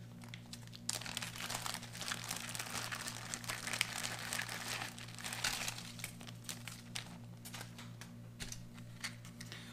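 Clear plastic bag of a ration accessory pack crinkling and rustling as hands dig small packets out of it.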